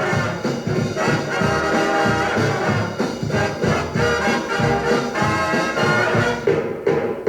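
Swing dance-band orchestra playing an instrumental passage led by brass, trombones and trumpets, played from a 78 rpm record.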